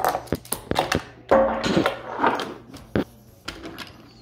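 Wooden toy trains and wooden track pieces clattering and knocking against a wooden floor, a run of irregular clicks and thumps.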